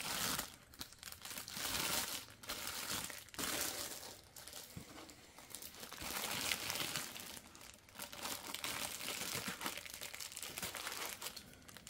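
Clear plastic bag crinkling as it is handled and pushed back into a foam packing insert, in irregular bursts of rustling and crackling.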